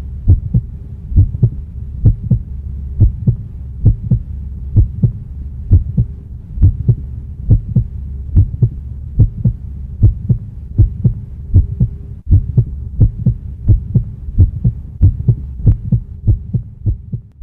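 Heartbeat-like sound effect: heavy low thuds about twice a second over a steady low hum, with a brief dip about twelve seconds in, ending near the close.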